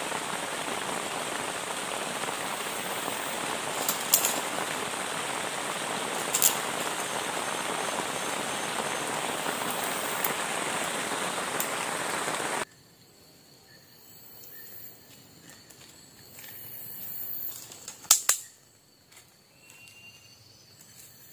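Steady rain hissing, then cutting off abruptly about twelve seconds in to a much quieter background broken by a few sharp snaps.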